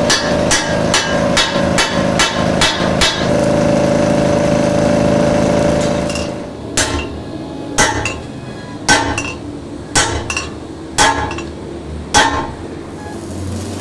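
Hammer blows on steel, axle-tube repair work. First comes a quick run of ringing strikes, about three a second. A steady machine drone follows for a few seconds, then single heavier blows land about once a second at uneven spacing.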